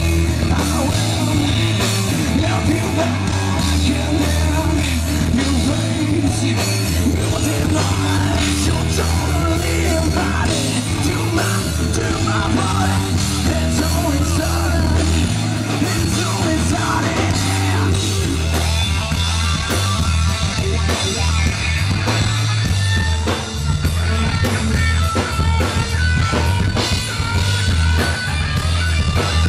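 Live rock band playing loud, unbroken: electric guitar, bass guitar and drums, with a strong low bass line.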